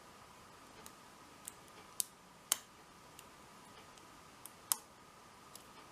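Hook pick and tension wrench working the pins of a large brass six-pin padlock during single pin picking: about eight sharp, irregular clicks, the loudest about two and a half seconds in, over a faint steady hum.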